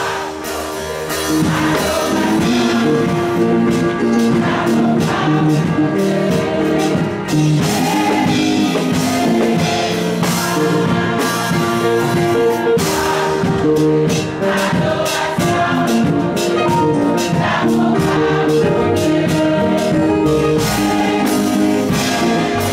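A group of voices singing a gospel hymn with instrumental accompaniment and a steady beat.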